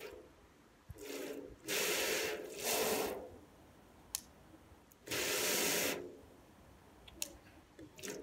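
Garden hose pistol-grip spray nozzle giving short hissing spurts of water, three back to back about a second in and another a couple of seconds later, with sharp clicks of the nozzle's trigger or pattern dial in between.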